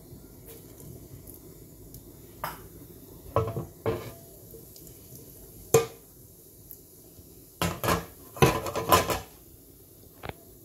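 Irregular sharp clinks and knocks against a non-stick pan, a quick cluster of them about eight to nine seconds in, while cumin seeds temper in hot oil.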